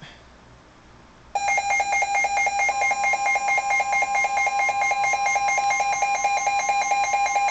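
NOAA weather radio sounding its alert for a severe thunderstorm warning. Loud, rapid, pulsed beeping starts about a second and a half in. About a second later the steady 1050 Hz weather-radio warning tone joins it and holds.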